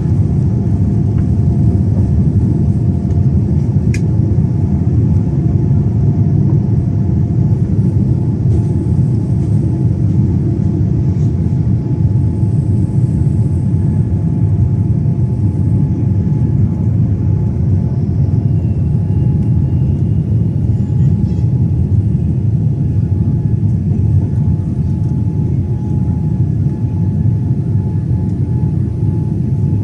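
Boeing 787's jet engines at high thrust on takeoff, heard from inside the passenger cabin as a loud, steady, deep rumble.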